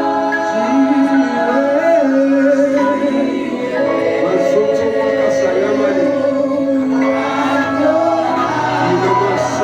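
Worship music with voices singing long held, wavering notes over a steady sustained accompaniment.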